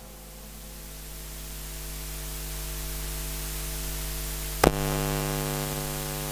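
Steady electrical hiss and mains hum, slowly growing louder, with a single sharp click about three-quarters of the way through, after which the hum is stronger.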